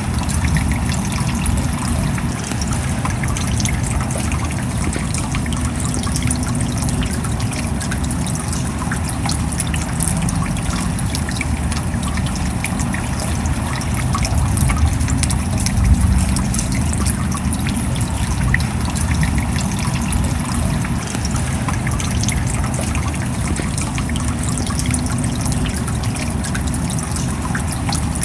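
Steady rain: a dense, even wash of many small drop impacts, with water trickling.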